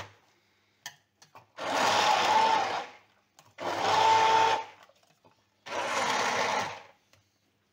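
Electric hand blender running in three short bursts of about a second each, its motor whining steadily as it chops a thick paste with a little broth in a tall plastic beaker, with small clicks between bursts. It is pulsed briefly so the mixture keeps small pieces and is not fully puréed.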